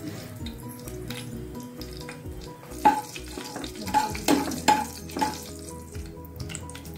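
Cumin and mustard seeds sizzling in hot oil in a nonstick kadhai during a tadka, the oil hot enough for the seeds to crackle. A few sharp clicks come near the middle as a spoon stirs the pan.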